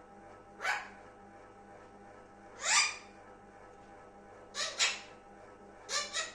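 Pet Indian parrot giving six short, harsh calls: one, then a louder one, then two quick pairs near the end.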